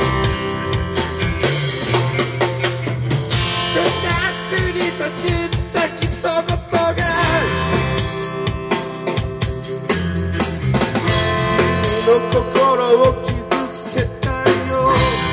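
Live rock band playing, with electric guitars, bass and a drum kit, and a man singing over them.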